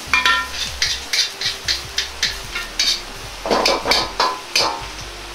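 Metal ladle scraping and knocking against a wok, about three strokes a second with a brief metallic ring, while minced garlic, ginger and chili fry in a little oil with a faint sizzle: the aromatics being stir-fried to draw out their fragrance.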